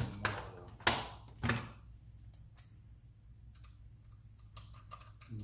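Sharp clicks and knocks from hard parts being handled: three louder knocks within the first second and a half, then a few fainter ticks.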